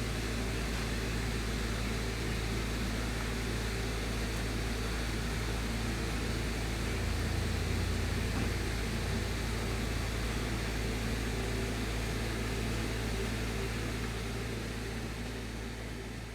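Steady hum of a running car, with an even hiss of air over it.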